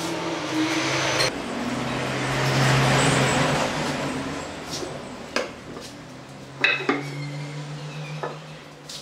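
A steady noisy sound with a low hum fills the first half and fades, then a few sharp wooden knocks as pine boards are set down on a wooden workbench.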